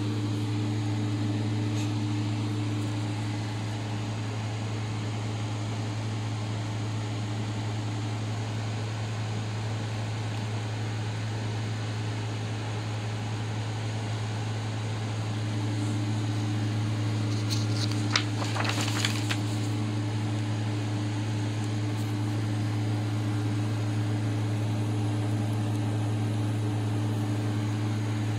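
Steady low machine hum, with a few brief clicks about two-thirds of the way through.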